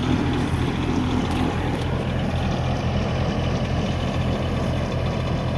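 Truck engine idling, a steady low drone with no horn blast.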